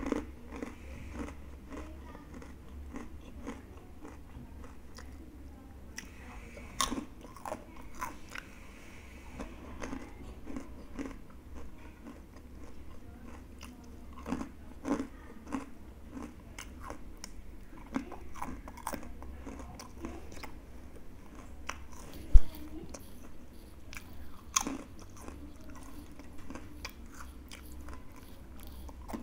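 Crunching and chewing of crispy fried shell-shaped macaroni chips, with a sharp crackle at each bite and softer chewing between. A single low thump about two-thirds of the way through.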